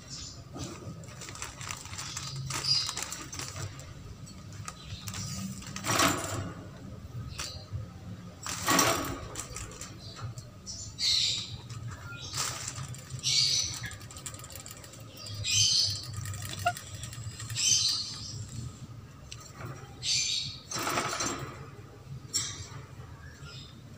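Holland lop rabbit moving about a wire cage at a clay pot bowl: a few sharp knocks with a string of short scratchy scrapes between them.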